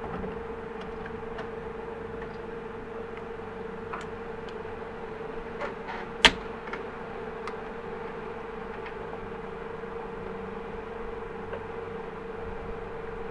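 Steady low hum of the indoor range at one pitch, with a few light clicks of a Sharps .45-70 rifle being handled. One sharp metallic click about six seconds in as the breech action is worked.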